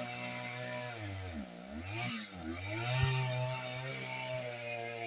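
Two-stroke chainsaw running at high revs, its pitch dropping sharply and climbing back up a few times as the throttle is eased off and opened again.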